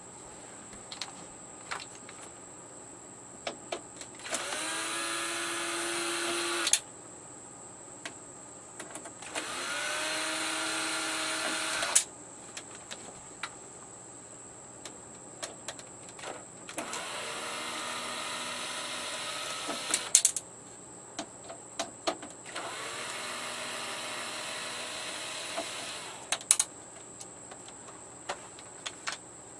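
Small battery-powered screwdriver running four times, each run about three seconds long, spinning up to a steady whine as it backs out the screws holding the TV's power board; light clicks of screws and small parts between runs.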